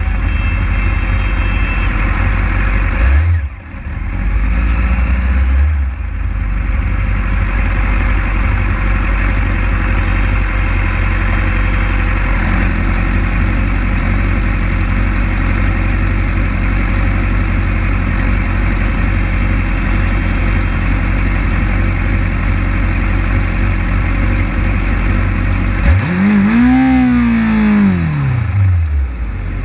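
Kawasaki ZX-6R 636's inline-four engine idling, with other sport bikes idling around it. Near the end, one throttle blip sends the revs up and back down over about three seconds.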